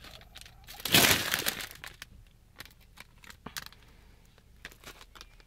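Small foil Doritos chip bag crinkling as it is handled: one loud rustling crunch about a second in, then scattered soft crinkles and ticks.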